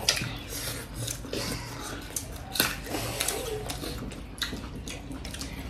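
Close-up eating sounds of people eating by hand: chewing and mouth smacking, with many small clicks and taps of fingers and food on plates.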